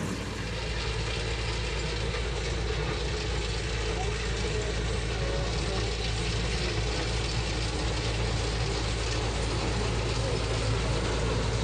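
Kubota Harvesking rice combine harvester running steadily as it cuts standing paddy. Its steady, even drone does not change.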